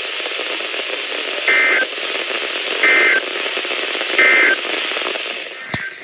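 NOAA Weather Radio receiver sending the SAME end-of-message data: three short digital bursts about 1.4 s apart over steady radio hiss, marking the end of the alert. A sharp click near the end.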